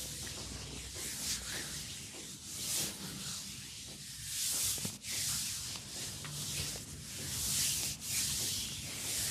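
Hands rubbing over hair and scalp in a head massage: a swishing rub that swells and fades in irregular strokes about once a second.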